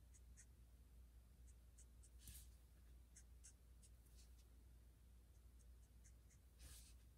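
Very faint, irregular dabs and strokes of a Copic alcohol marker's nib on a small die-cut cardstock flower: short soft ticks, with slightly longer scratches about two seconds in and near the end. A low, steady hum underneath.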